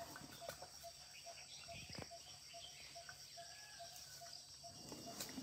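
Faint outdoor background of insects chirping in a steady, regular pulse of two to three chirps a second, with a continuous high-pitched buzz; a soft knock about two seconds in.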